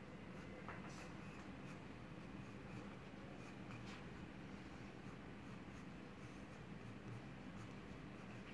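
Faint scratching of a graphite pencil on sketchbook paper in light sketching strokes, with a few sharper ticks of the pencil tip.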